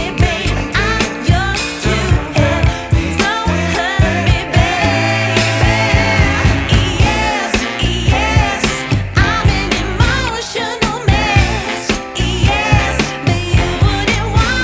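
Background pop song with a woman singing over a steady beat.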